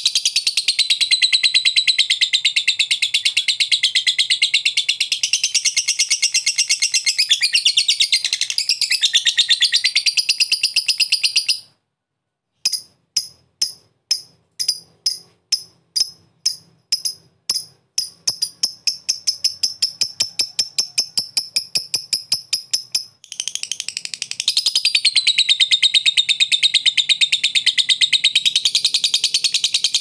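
Fischer's lovebird giving its long, rapid chattering song (ngekek): about eleven seconds of unbroken high chatter, a brief pause, then separate chips that speed up into a fast trill and run back into continuous chatter about 23 seconds in.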